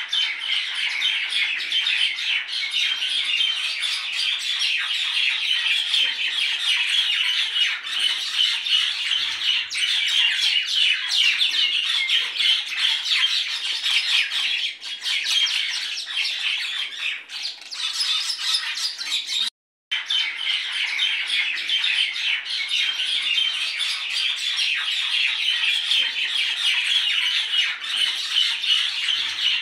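Many birds calling at once, a dense, continuous chatter of chirps and squawks. It cuts out for a moment about two-thirds of the way through.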